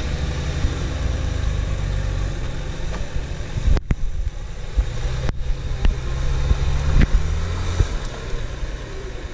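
Off-road 4x4's engine running under load as it crawls over rough ground, the revs rising and falling, with a few sharp knocks along the way.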